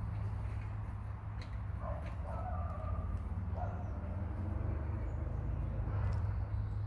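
Hens giving a few short, soft clucks about two seconds in, over a steady low rumble.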